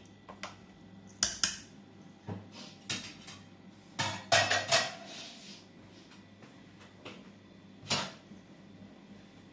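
Kitchen clatter of utensils and pots: scattered clinks and knocks, the loudest a quick cluster about four seconds in with a short metallic ring, and one more knock near the end.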